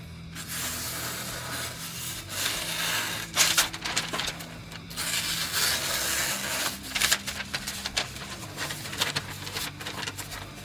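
Freshly sharpened knife slicing through paper in a series of irregular swishing cuts, an edge-sharpness test, over a steady low hum.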